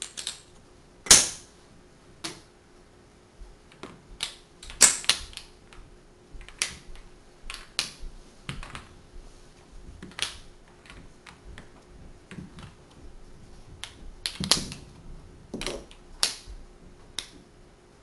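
Magnetic wooden blocks (Tegu) clicking and clacking together as they are handled, snapped onto one another and set down. Irregular sharp clicks, with the loudest clacks about a second in, about five seconds in and about three-quarters of the way through.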